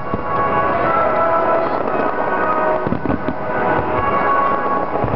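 Fireworks display: bangs and crackling of bursting shells, mixed with loud music with held notes.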